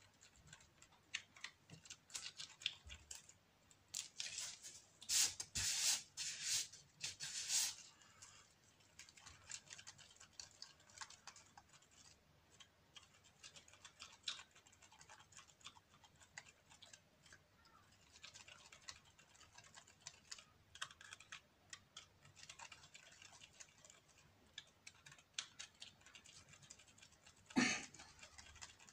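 Light, irregular clicks and taps from small objects being handled on a worktable: cups, bottles and a stirring or spreading tool used in resin work. A denser run of louder scraping clicks comes about five to eight seconds in, and a louder, longer rustle or scrape just before the end.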